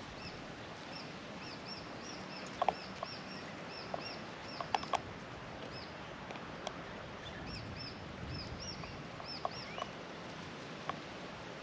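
A bird chirping over and over: short, high, arched notes, about two a second, with a few sharp clicks in between.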